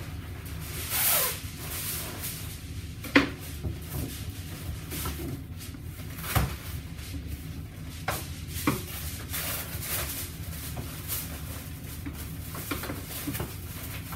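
Boning knife cutting and scraping along the bone of a bone-in ham, with short rubbing sweeps and scattered sharp knocks, the loudest about three seconds in, over a steady low hum.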